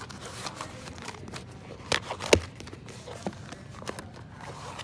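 A notebook and a planner cover handled and set down on a store counter, with small rustles and clicks and two sharp taps about two seconds in.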